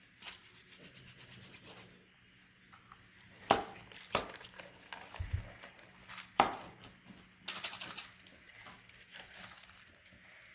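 Homemade slime being handled, squished and pulled apart: sticky crackling and rubbing, with a few sharp pops and a dense crackle about three quarters of the way through.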